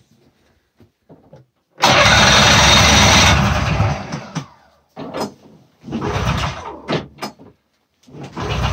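Polaris Indy 488 snowmobile's two-stroke engine being pull-started: it fires and runs loud for about a second and a half, then sputters and dies away. Shorter bursts follow as the cord is pulled again. The engine is hard-starting and won't keep running.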